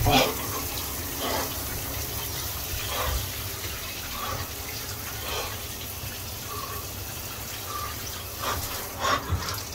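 A hotel shower's spray running steadily under a man standing in it. He takes short, sharp breaths every second or two, louder near the end, gasping at the cold water.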